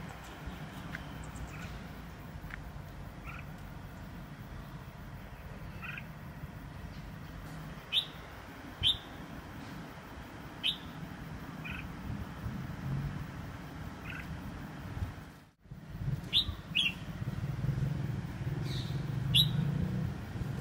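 A small caged bird giving short, sharp chirps, each dropping quickly in pitch, scattered singly and in pairs with a few seconds between them, over a steady low hum.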